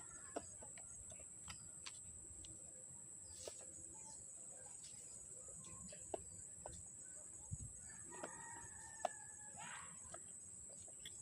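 Scattered small clicks and taps of fan parts and tools being handled, the sharpest about nine seconds in, with a chicken calling in the background about eight seconds in: a held call ending in a rising note.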